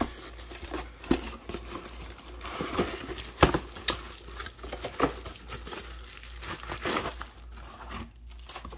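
Plastic bubble wrap being handled and unwrapped, crinkling with irregular crackles and one sharper crack about three and a half seconds in.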